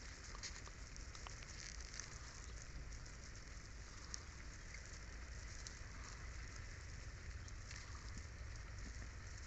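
Faint crackling fizz with small scattered clicks: instant cyanoacrylate glue (Bond Tite) reacting with and melting pieces of thermocol (polystyrene foam) packed over a hole in a PVC pipe.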